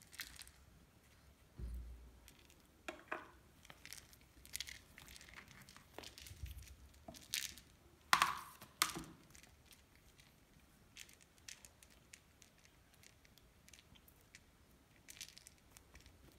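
A Ragdoll kitten playing in a hard plastic pod bed: scattered rustles and scratches of claws and fur against the plastic and the toy, with two dull thumps and a couple of sharper scrapes about eight seconds in.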